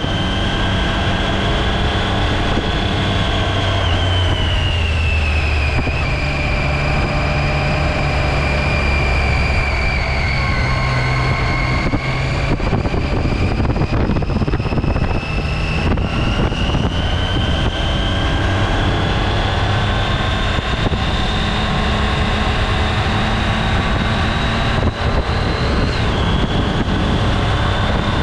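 2017 Triumph Tiger XCx's three-cylinder engine running under way, with wind and tyre noise. Its pitch falls over the first several seconds, climbs slowly through most of the rest, then drops sharply a couple of seconds before the end.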